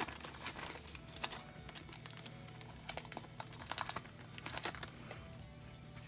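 Light clicks, taps and small rustles of Pokémon cards and a booster pack wrapper being handled, over faint background music.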